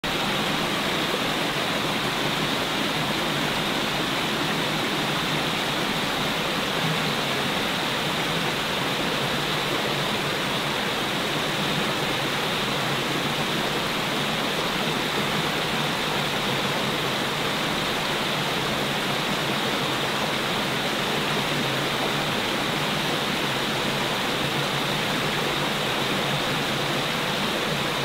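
A rocky forest stream running over a small cascade: a steady, even rush of water with no breaks.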